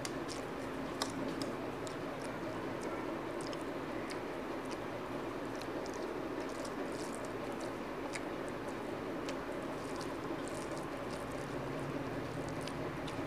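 Close-miked hand-eating sounds: wet chewing and lip smacks, with fingers squishing and mixing rice on a steel plate, heard as many small sharp clicks. A steady hiss runs underneath.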